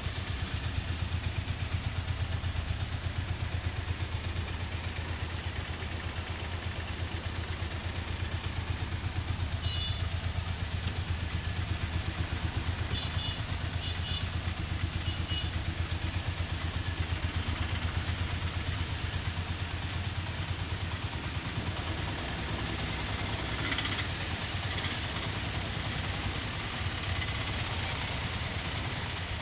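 An auto-rickshaw's small engine idling with a steady low drone, over the continuous rush of a flooded river.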